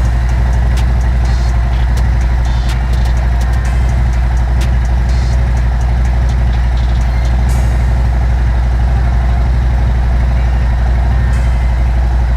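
Harley-Davidson V-twin motorcycle engine idling steadily with an even, loping beat, running on a tune just flashed with a Power Vision tuner.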